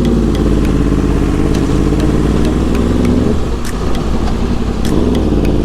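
Yamaha R1's inline-four engine running steadily while riding, its revs dropping and picking back up about three seconds in.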